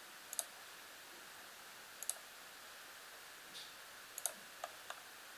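Computer mouse button clicking a few times, some clicks in quick pairs, over a faint steady hiss, as points are picked on screen.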